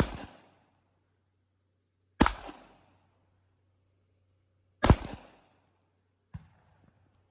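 Handgun fired three times in slow, aimed succession, about two and a half seconds apart, each shot followed by a short echo. A fainter sharp crack comes about six seconds in.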